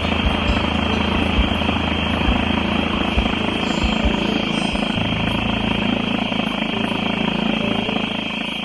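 Steady aircraft engine drone with a low hum, used as a sound effect.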